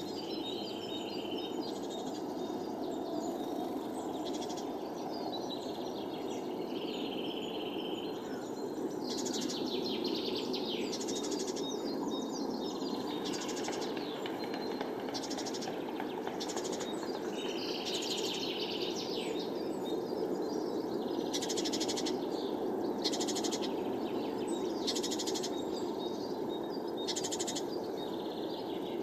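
Small songbirds calling around hanging seed feeders: short trills and whistled notes every second or two, over a steady low background rush.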